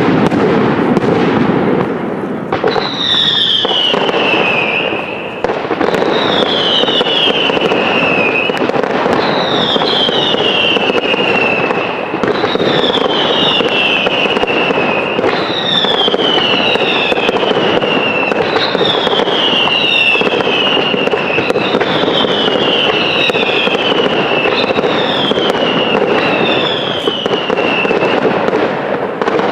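Fireworks display with a steady dense crackle, overlaid from about three seconds in by a string of about a dozen whistling fireworks, each a falling whistle of about two seconds, one every two to three seconds.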